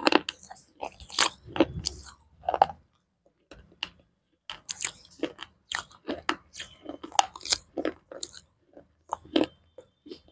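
Close-miked biting and chewing of slate pencil: irregular, sharp, gritty crunches in quick succession, with a short pause about three seconds in before the crunching resumes.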